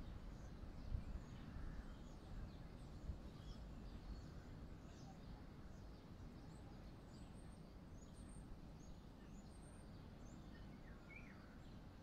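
Faint outdoor background: a low steady rumble with many short, high bird chirps and tweets scattered throughout, thickest in the middle.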